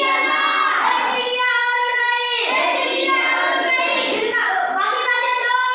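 A child's voice singing a song, with long held high notes that change pitch about every second or so.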